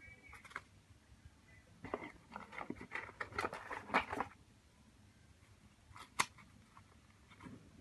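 Small tools and parts being handled on a phone during a repair: a quick run of clicks, taps and scrapes, then a single sharp click a couple of seconds later.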